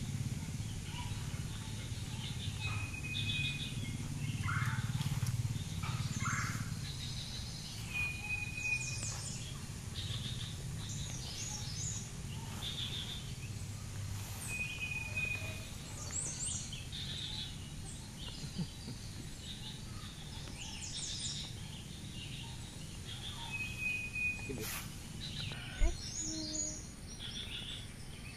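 Wild birds chirping and calling, with one short level whistled note coming four times, over a low rumble in the first half. A single sharp thump near the end is the loudest sound.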